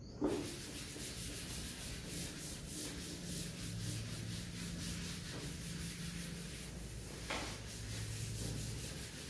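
A chalkboard duster wiped across a chalkboard in quick back-and-forth strokes, a steady scrubbing hiss, starting with a brief knock as the duster meets the board.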